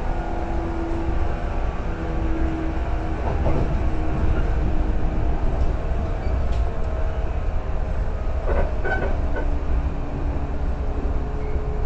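JR 115-series electric train running along the line, heard from inside the passenger car: a steady rumble of wheels on rails with a humming tone. A brief cluster of clicks and a squeak comes about eight and a half seconds in.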